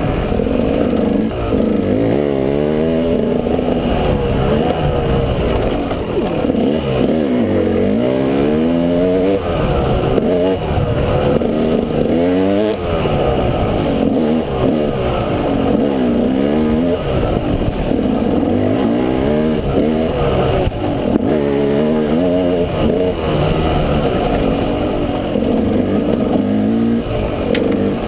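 Dirt bike engine revving up and down over and over, its pitch repeatedly rising and falling as the throttle is worked and the gears change.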